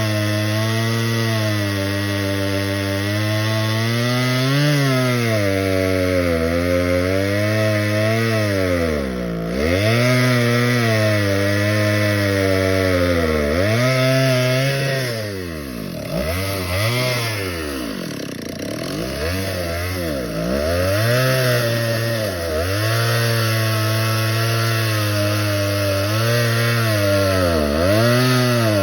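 Two-stroke chainsaw cutting wood, its engine speed sagging and recovering over and over, with the deepest, most ragged dips about halfway through. The owner puts the bogging down to fuel starvation and a carburetor that needs cleaning.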